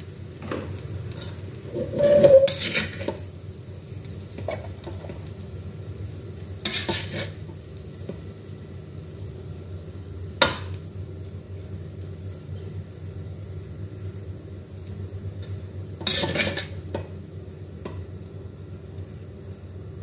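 Metal spatula scraping and turning fried rice in a metal wok, a few separate scrapes several seconds apart with one sharp clank of spatula on wok about halfway through, over a steady low hum and light sizzling.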